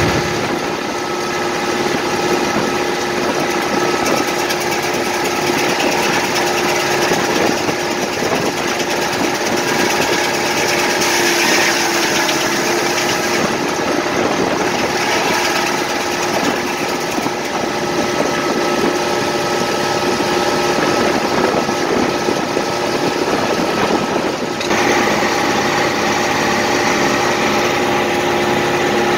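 Engine running steadily and driving a circular sawmill, its large saw blade spinning, with a steady multi-tone drone; the sound changes slightly about 25 seconds in.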